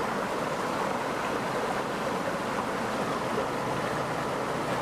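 Shallow stream rushing over rocks: a steady, even rush of flowing water.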